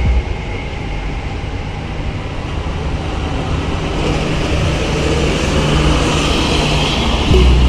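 Intercity bus driving past on the road. Its engine and tyre noise build steadily as it approaches.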